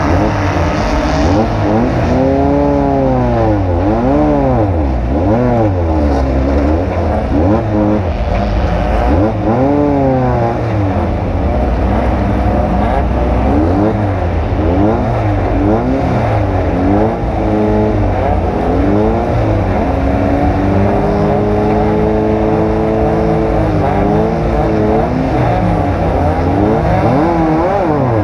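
Off-road race vehicle's engine running hard, its pitch climbing and dropping again and again as the throttle is worked, then held steadier for a few seconds past the middle.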